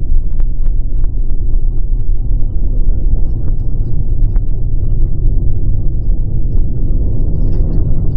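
Steady low rumble of a car in motion, heard from inside the cabin, with a few faint clicks.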